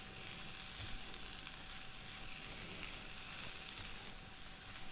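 Quiet, steady sizzling of boiled cluster beans and masala frying in a non-stick pan over low heat, with a spatula stirring through them and a few faint knocks against the pan.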